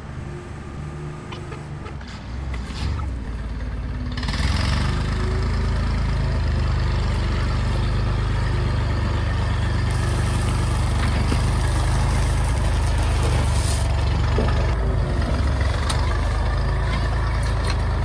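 Massey Ferguson 40 backhoe-loader's engine running steadily: fainter at first, then loud and close from about four seconds in. Dirt spills from the raised front loader bucket, adding a rushing hiss from about ten seconds in for a few seconds.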